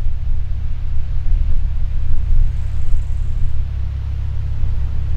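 Low, steady rumble of a Cessna O-2A Skymaster's front and rear piston engines running, heard from far across the airfield and blurred by wind on the microphone.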